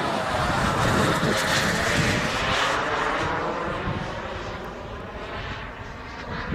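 Turbine jet engine of a giant-scale RC Yak-130 model jet making a fly-by. The rushing jet noise swells to a peak with a sweeping pass about a second or two in, then fades away as the model flies off.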